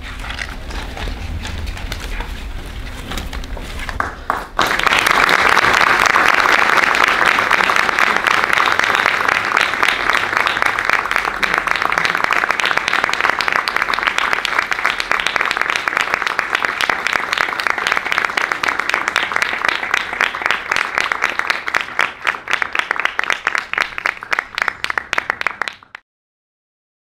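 Audience applauding. The clapping is lighter for the first four seconds or so, then suddenly swells to a full, dense applause. It thins into scattered claps near the end and cuts off abruptly.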